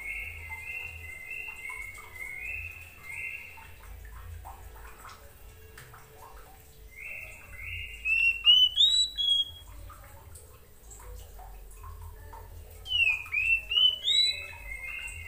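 Oriental magpie-robin singing in phrases: a run of short, flat, evenly pitched notes at the start, then about eight seconds in and again near the end louder bursts of rising and falling whistles.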